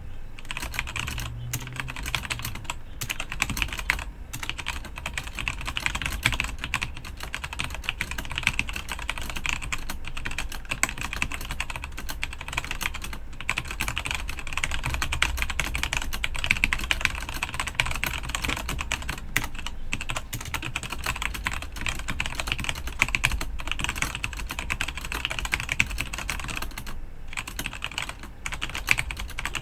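Fast touch typing on a Rantopad MT mechanical keyboard with Gateron Black linear switches: a rapid, continuous run of key clacks, broken by brief pauses about four seconds in, near the middle and near the end.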